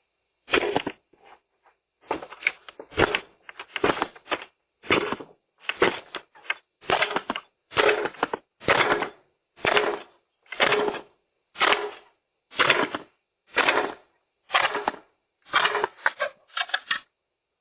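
A shoe banged hard and repeatedly against a surface close to the doorbell camera's microphone: a long run of sharp, loud blows, about one a second, a little quicker and less even for the first few seconds.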